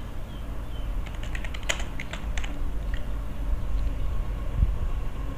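Computer keyboard typing: a quick run of about a dozen keystrokes starting about a second in and lasting some two seconds, over a steady low hum.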